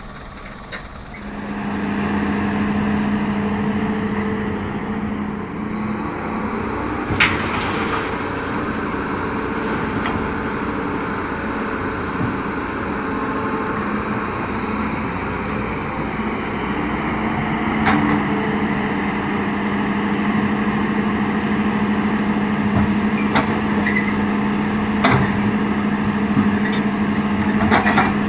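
Hitachi excavator's diesel engine working steadily, getting louder about a second in, with a few sharp knocks scattered through.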